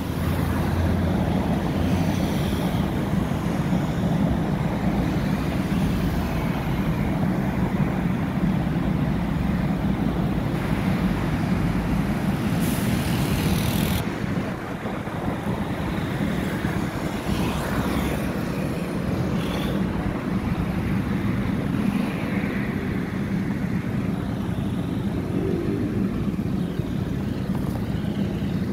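Street traffic: a steady hum of car engines from idling and passing vehicles, with a short sharp hiss lasting about a second near the middle.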